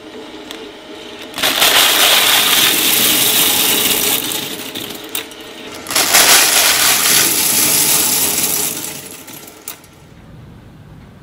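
A bag of dry penne pasta crunching and crackling as it is torn and crushed between the rotating steel cutters of an industrial shredder, in two long bursts of about three seconds each; the sound dies down near the end.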